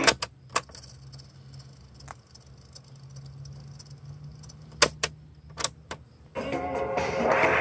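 Cassette deck of a Magnavox AQ5051 boombox: the tape's music cuts off with clacks of the piano-key transport buttons, and the tape motor hums low and steady for about six seconds. More button clacks come about five seconds in, and the music from the tape starts again through the speaker near the end.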